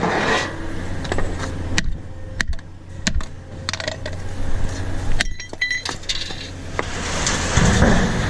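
Small scrap brass and copper tap fittings clinking and knocking together as they are handled, with a short run of ringing metal clinks about five seconds in.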